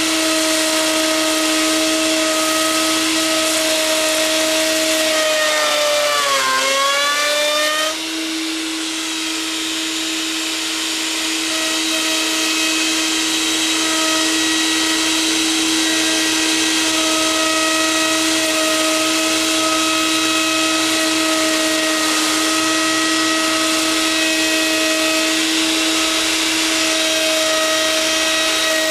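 Router running on a homemade router lathe: a steady, high motor whine over a rushing hiss. About six seconds in, the whine sags briefly in pitch and then picks back up to its steady note.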